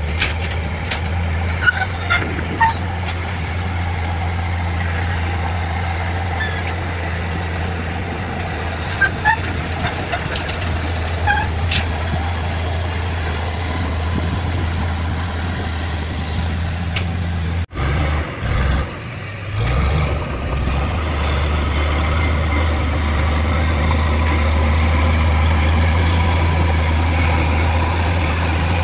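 Kobelco SK200 hydraulic excavator's diesel engine running steadily while digging, with brief high squeals about 2 and 9 seconds in. The sound breaks off abruptly a little past halfway and then resumes.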